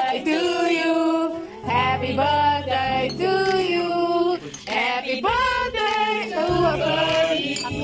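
A group of people singing together, women's voices loudest, in long held notes with brief breaks between phrases.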